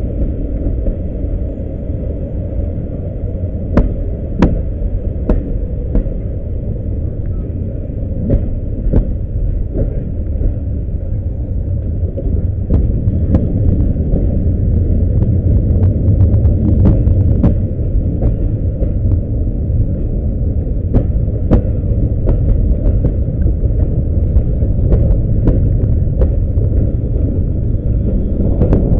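Passenger train running at speed, heard from outside a carriage window: a steady low rumble of wheels on the track with many irregular sharp clicks, growing louder about halfway through.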